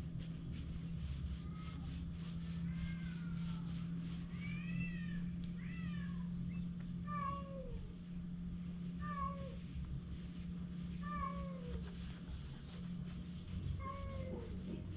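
Cat meowing: a series of short calls that fall in pitch, repeating about every two seconds in the second half, over a steady low hum.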